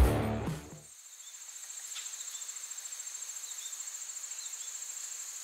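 Rock music fades out in the first second. Then a steady, high, rapidly pulsing cricket-like insect trill runs on, with a few faint short chirps.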